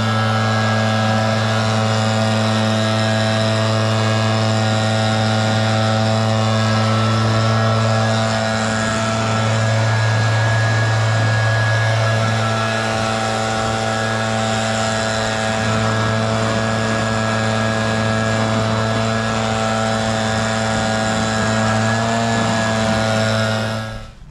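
Gas backpack leaf blower with a two-stroke engine running steadily at high throttle, blasting dust out of a round baler; it cuts off suddenly near the end.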